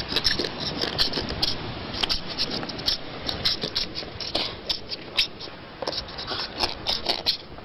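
Wombat sound: an irregular run of scratchy scraping and rustling, dense with sharp clicks.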